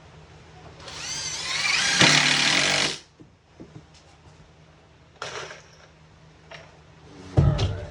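Cordless drill driving a GRK wood screw into plywood sheathing: the motor whines up in pitch for about two seconds and stops abruptly. A few light clicks and a knock follow near the end.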